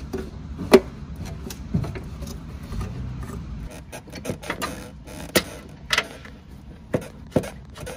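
Hands fitting a silicone intake J-tube and its stainless steel T-bolt clamp onto a turbo inlet: scattered sharp clicks and knocks of metal and plastic parts being handled, the loudest about a second in, over low rustling.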